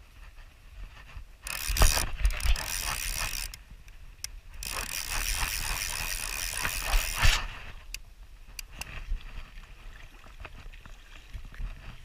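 Fly reel's click-and-pawl ratchet running in two bursts, the first about two seconds long and the second about three, as a hooked fish is played on the rod; scattered single clicks follow.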